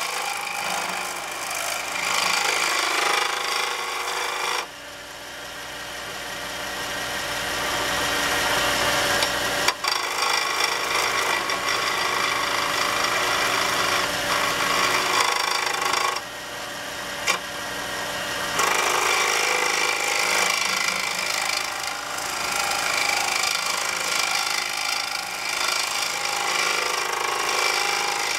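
Wood lathe spinning a wooden pen blank while a skew chisel shaves it to final shape: a continuous scraping hiss of wood being cut over the lathe's running hum. The cutting sound eases off briefly about five seconds in and again past the middle, then comes back.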